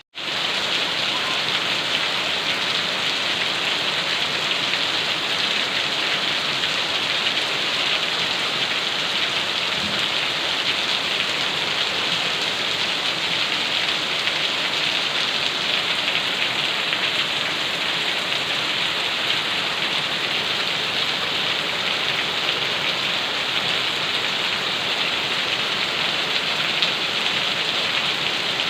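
Steady, heavy rain falling on a surface, a dense even patter with no let-up. It drops out for an instant at the very start.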